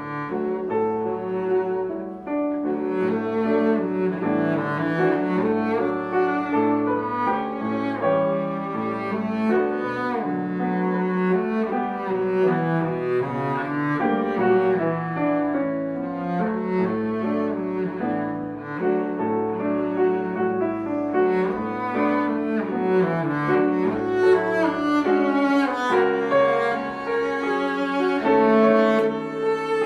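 Cello and grand piano playing a classical duo piece, the cello bowed throughout over the piano.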